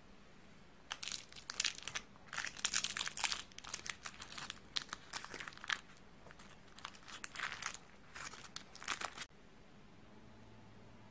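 Paper cupcake liner crinkling and rustling as it is peeled off a chiffon cupcake, in an irregular run of crackles that begins about a second in and stops abruptly near the end.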